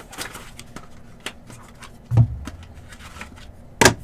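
Trading-card boxes and cards being handled on a table: light rustling, a dull thump about two seconds in, and a sharp knock near the end.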